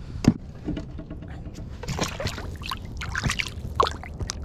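A sharp knock, then irregular splashing and dripping water and small knocks as a just-caught fish is let go toward a hole in the ice beside the kayak.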